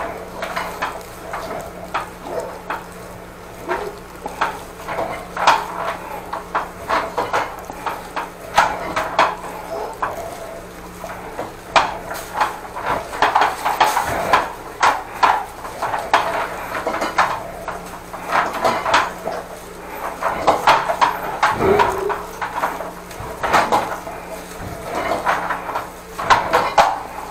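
Irregular clattering and knocking of hard objects, many sharp strikes at an uneven rate, over a faint steady hum.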